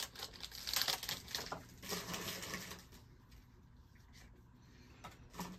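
A trading-card pack wrapper being torn open and crinkled: a quick run of crackles and rustles for about three seconds, then quieter rustling with one short crinkle near the end.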